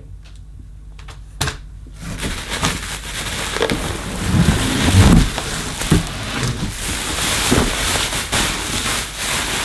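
Bubble wrap and plastic packaging crackling and rustling as a bubble-wrapped vacuum cleaner body is lifted out of a cardboard box and unwrapped, with a dull knock about five seconds in. The first two seconds are quieter, with only a few clicks.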